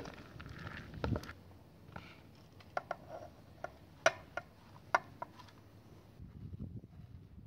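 Dry rice, lentils and split peas pouring and rustling into an aluminium pot, with a dull thump. Then a string of sharp clicks and knocks as a wooden spoon scrapes chopped herbs out of a metal bowl and taps the bowl and pot rims, loudest about four seconds in.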